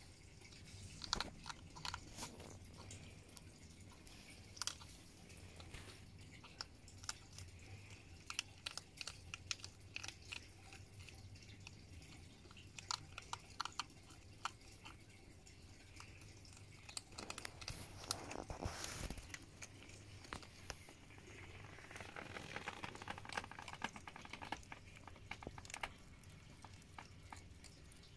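Two hedgehogs chewing and crunching food from a dish, close up: a steady, irregular run of small crunches and clicks, with a louder noisy spell of about two seconds past the middle.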